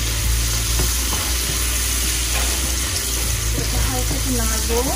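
Prawns frying in a pan on medium heat: a steady sizzle, with a low hum underneath.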